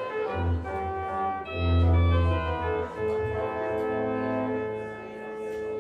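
Church organ playing slow sustained chords over low bass notes, the harmony changing about once a second.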